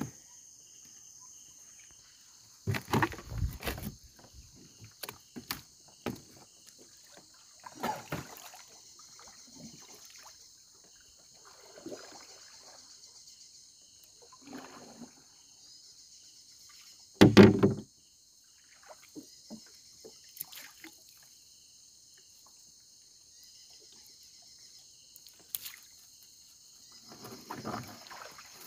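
Small boat being paddled on a river: irregular paddle splashes and knocks against the hull every few seconds, one much louder near the middle, over a steady high chirring of insects.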